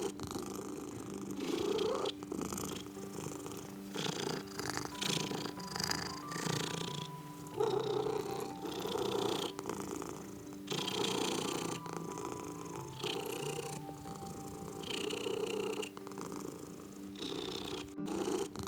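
A sleeping domestic cat snoring close into a microphone: a rasping rumble that swells and fades with each breath, about one breath every two seconds.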